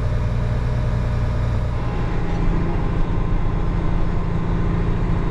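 Heavy diesel engine of a farm machine running steadily under load, a low drone whose pitch steps up about two seconds in.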